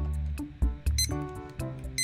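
Background music, with the Casio DQL-250J alarm clock's short, high electronic alarm beep sounding about a second in and again at the end, once a second.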